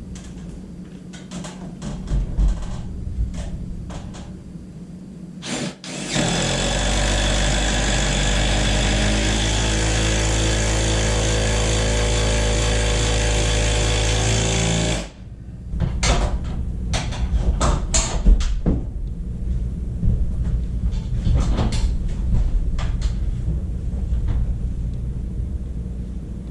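A power tool runs loud and steady for about nine seconds, starting and stopping abruptly, with scattered knocks and clicks of work on wood before and after it.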